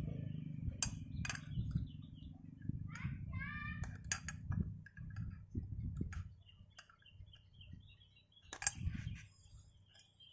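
Scattered sharp metallic clicks and clinks of small scooter transmission parts being handled and pried loose, over a low rumble early on, with birds chirping in the background.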